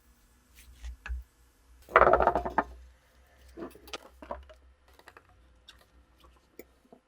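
Small metal parts and tools handled on a hard workbench surface: scattered light clicks and knocks, with a short burst of rapid rattling clatter about two seconds in.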